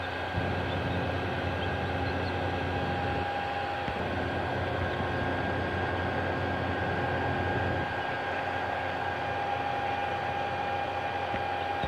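Steady mechanical hum with an even hiss: a low drone and a faint, thin higher whine that holds pitch.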